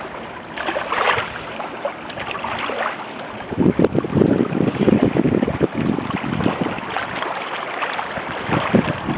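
Ocean surf washing at the shore, with wind buffeting the microphone in gusty rumbles from about a third of the way in.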